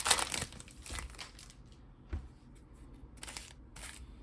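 Foil booster-pack wrapper crinkling as it is torn open, loudest in the first half second, then quieter rustling of trading cards being handled, with a soft knock about two seconds in.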